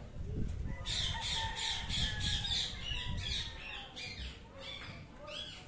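Yellow Indian ringneck parrot giving a rapid run of shrill squawks starting about a second in, about four or five a second, trailing off, with a couple more near the end.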